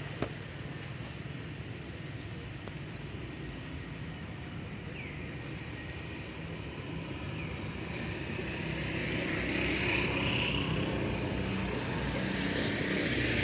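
Steady low outdoor rumble of background noise, growing louder over the second half, with a few faint short high sounds on top.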